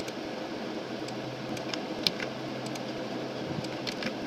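Steady background hiss with a few faint, sharp clicks: one about two seconds in and a small cluster near the end.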